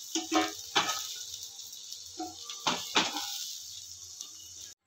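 Cauliflower florets sizzling in oil in a nonstick frying pan while a spatula scoops them out, with a few sharp scrapes and knocks of the spatula against the pan.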